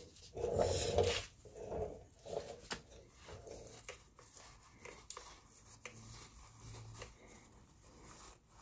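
Hands handling a saw chain on a chainsaw bar: scattered light metallic clicks, scrapes and rustling as the chain is worked into place, loudest in about the first second and a half.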